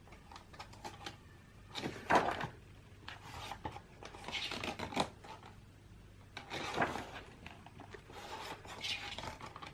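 Pages of a paper photobook being turned and handled: a few soft, irregular rustles and rubs of paper.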